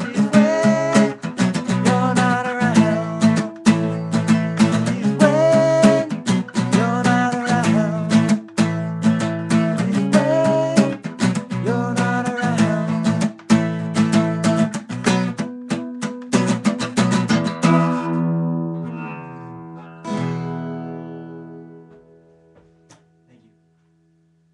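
Acoustic guitar strummed in steady chords under a man's singing as the song ends. The strumming stops about three quarters of the way through, and one last chord rings out and fades away.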